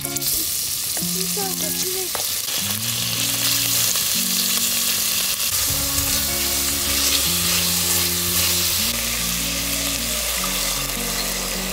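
Cubes of beef sizzling in hot oil in a stainless steel pot as they are dropped in and stirred. The sizzling starts suddenly as the meat goes in and then runs on steadily.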